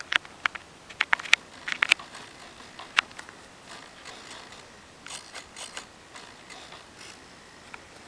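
Close handling noise: a run of sharp clicks and knocks over the first three seconds, then a few softer scuffing sounds about five seconds in, with no motor running.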